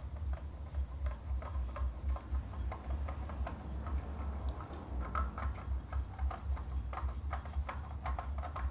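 Irregular small metallic clicks and knocks of a screwdriver working a stuck motorcycle oil filter loose, over a steady low hum.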